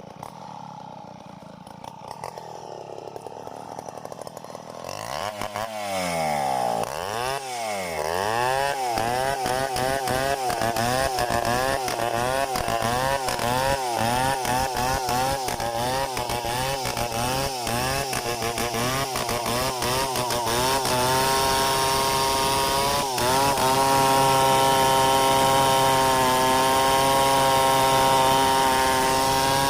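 Petrol chainsaw engine, quieter at first, then opened up about five seconds in and cutting under load, its pitch wavering up and down. Near the end it holds a steady high-revving note, with one brief dip.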